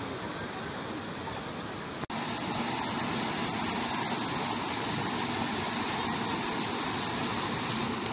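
Water flowing in a stone canal and rushing over small stepped weirs, a steady noise. It breaks off for an instant about two seconds in, then comes back louder.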